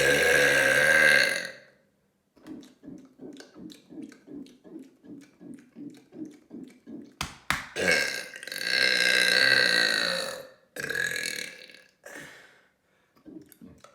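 Loud, long human burps: one of about two seconds at the start, then after a stretch of soft rhythmic pulsing at three or four beats a second, a longer burp of about three seconds followed at once by a shorter one.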